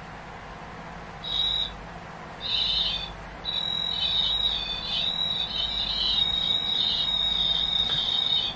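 A thin, high-pitched whistling tone, first in two short bursts, then held for about five seconds, wavering slightly in pitch, over a steady low hum.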